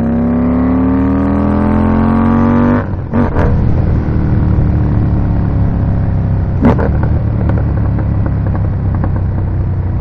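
Indian Scout Bobber's liquid-cooled V-twin accelerating through a Freedom Performance 2-into-1 Combat exhaust. The engine pitch rises for about three seconds, drops sharply as the rider changes up a gear, and then holds steadier as the bike cruises.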